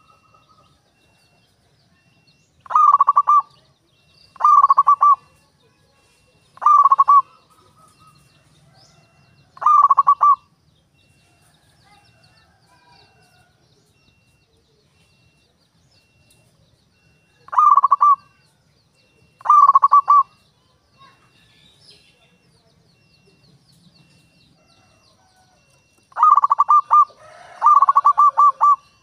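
Zebra dove (perkutut) cooing: six short, rapidly pulsed coos spaced a couple of seconds apart, then two longer runs of coos close together near the end.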